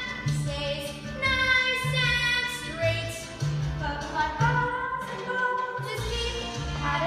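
Music: a song with a woman singing over a bass line.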